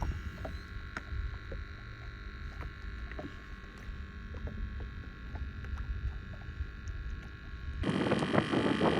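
Wind buffeting the microphone as a steady low rumble, with a faint high steady whine and scattered small clicks over it. About 8 s in, the sound jumps abruptly to a much louder rushing noise.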